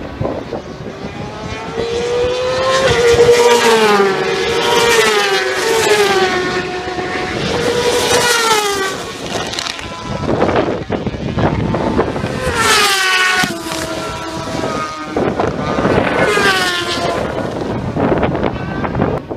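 Racing motorcycle engines at high revs passing one after another, several bikes in turn. Each engine note climbs as the rider changes up and then falls away as the bike goes by.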